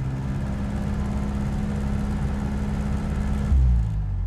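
Mooney M20's piston engine running steadily at run-up power during the pre-flight magneto check. About three and a half seconds in, the engine note drops suddenly with a thump; the check found one of the two magnetos completely dead.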